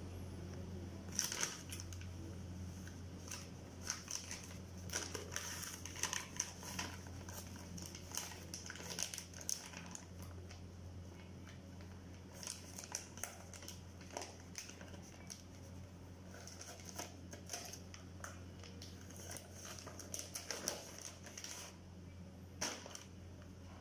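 Irregular crisp crackling and crunching with scattered sharp clicks, over a steady low hum.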